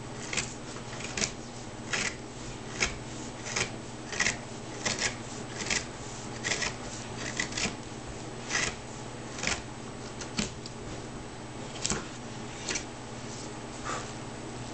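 Hand carving knife slicing into wood, a series of short scraping cuts at roughly one a second as the outline of an ovoid is carved into the panel.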